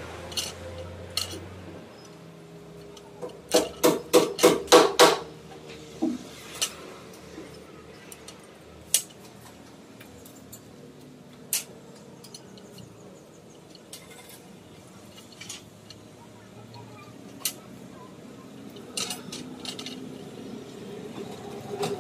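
Steel rebar and stirrups of a reinforcement cage clinking as binding wire is tied on with pliers: a quick run of about seven ringing metal taps a few seconds in, then scattered single clicks.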